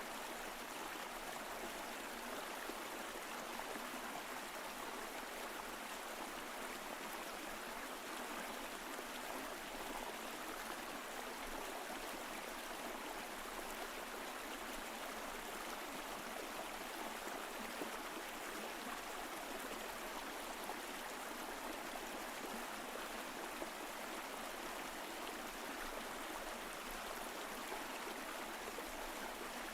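Mountain stream flowing over rocks: a steady, even rush of water with a light gurgle.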